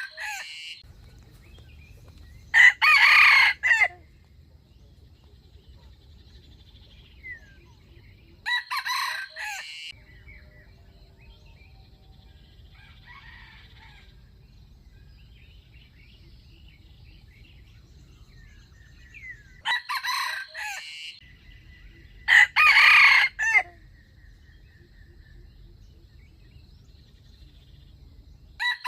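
Rooster crowing: short crows of about a second each, repeated about six times at uneven gaps, with two of them (about 3 s and 22 s in) much louder than the others.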